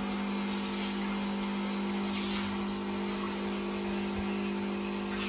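De'Longhi espresso machine's pump humming steadily as it brews coffee into the cups, with two brief hisses about half a second and two seconds in.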